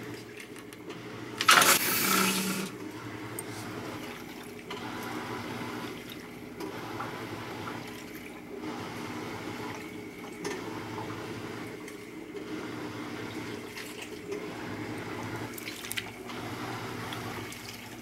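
Top-loading washing machine filling its tub: a steady rush of water over a low hum, with a louder whoosh lasting about a second near the start.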